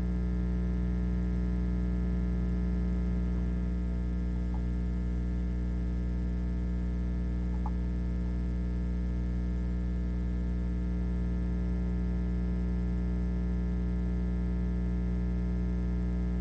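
Steady electrical mains hum with many evenly spaced overtones and two faint ticks partway through.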